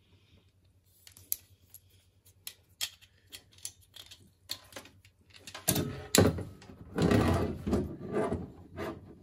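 Sharp clicks and light metal clinks from a perforated steel TV mount bracket and its spacer and bolt being handled, then from about six seconds in louder scraping and knocking as the bracket is pressed against the TV's plastic back panel.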